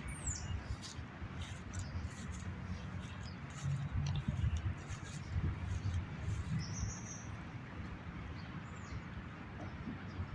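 A few short, high bird chirps, scattered and falling in pitch, over a steady low rumble.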